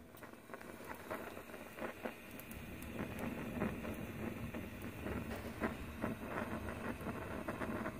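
Hatch green chiles charring directly on a gas stove burner: a low steady rush of the flame with irregular crackles and small pops from the blistering skins.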